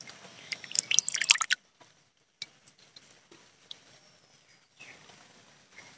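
Water and wet small fish being handled in a terracotta bowl during washing: a burst of splashing and squelching about a second in, then scattered drips.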